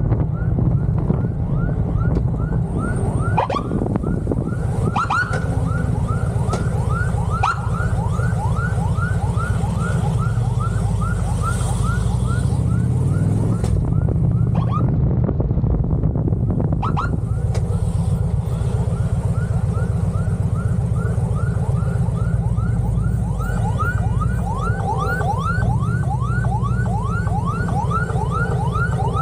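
Police motorcycle siren sounding a fast yelp, about three pitch sweeps a second, over a steady low rumble of engine and wind. The siren drops away for a few seconds about halfway through, then resumes.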